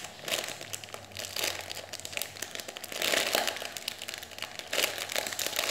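A clear plastic bag crinkling in a few bursts as the foam squishy toy sealed inside it is handled.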